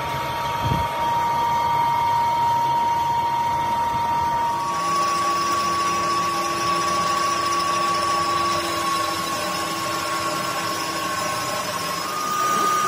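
Metal lathe running, with a steady whine from its drive. About five seconds in the whine steps up slightly and a hiss joins it, and the pitch rises again near the end.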